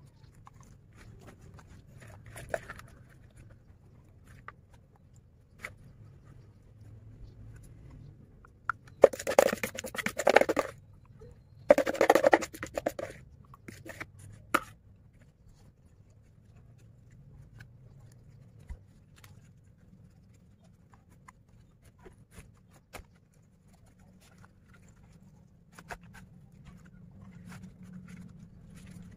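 Hands working with banana leaves and a plastic basin of spiced fish: soft rustles and small clicks, with two loud scraping spells about nine and twelve seconds in as the fish and spice paste are scraped out of the basin onto a banana leaf.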